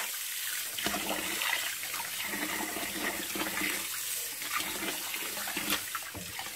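Kitchen tap running steadily into a pot of water, with hands swishing and rubbing cracked dried corn in it to rinse off the impurities.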